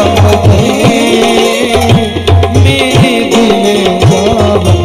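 A man singing a Punjabi folk song over tabla, whose bass strokes slide up and down in pitch, with steady held tones underneath.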